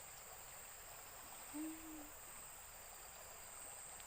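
A single low hoot, one pure tone of about half a second, about a second and a half in, over a faint steady high-pitched insect drone.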